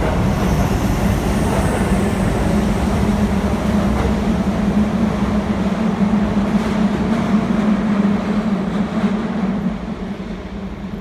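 Electric commuter train running through a station: a loud, steady rail rumble with a low hum, easing off about ten seconds in.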